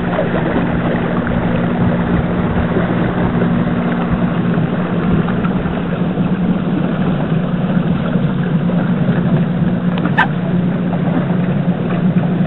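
Small electric trolling motor driving a light boat at steady cruising speed: a low, even hum over the rush and splash of water churned up in the wake. A single brief click about ten seconds in.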